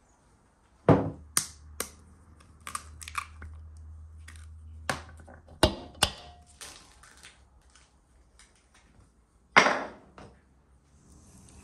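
Eggs cracked one after another against the rim of a mixing bowl and dropped onto a heap of flour: a series of sharp cracks and knocks, the loudest about a second in and near the end.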